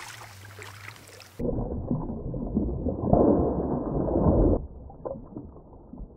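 A large trout thrashing in a landing net in shallow water, with heavy splashing for about three seconds starting a little over a second in, heard muffled and close up; it dies down to lighter sloshing near the end.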